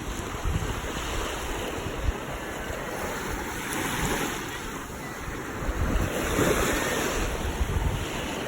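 Sea waves washing onto the shore, with wind buffeting the microphone; the surf swells louder about six seconds in.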